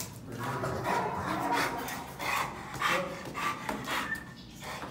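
Pit bull-type dog on a leash moving about, with irregular short bursts of breathing and scuffling noises.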